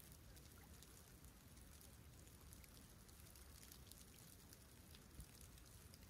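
Very faint, gentle lapping and trickling of calm sea water at the shoreline, with many tiny high ticks and a soft low rumble underneath.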